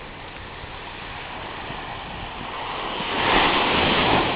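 Ocean surf: a small wave swells and breaks on the beach shore, the rushing hiss of water building to a crash about three seconds in and starting to fade near the end.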